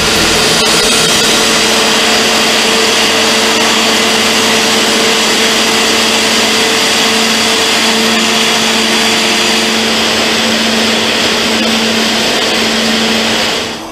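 Hydraulic rock drill on a face-drilling jumbo drilling into a rock face: a loud, steady, dense mechanical din with a steady underlying hum. It cuts off suddenly near the end.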